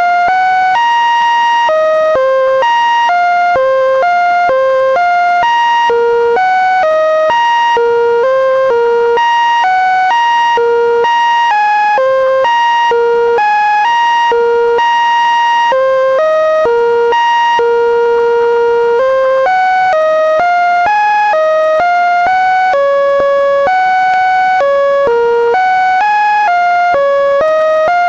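Linux kernel data rendered by a script as a continuous string of electronic beep-like notes with overtones. The notes jump between pitches several times a second, with now and then a longer held note.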